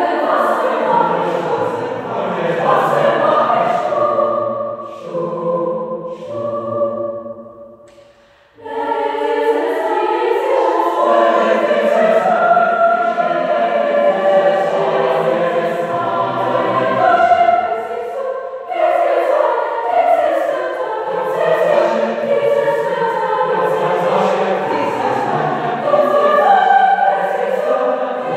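Mixed choir of teenage voices singing a German drinking song in a church. About eight seconds in, a phrase dies away into a brief silence before the voices come back in together, and there is a shorter break just before nineteen seconds.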